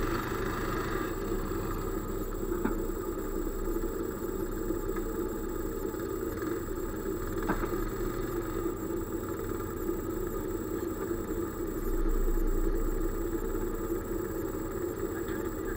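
An engine idling steadily, with a deeper rumble swelling in near the end and a couple of faint clicks.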